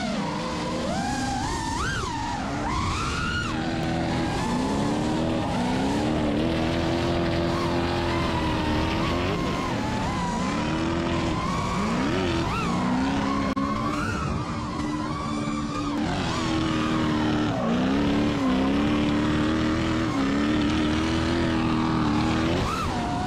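Drifting BMW's engine revving, its pitch rising and falling again and again through the slides, over tire squeal from the spinning rear tires.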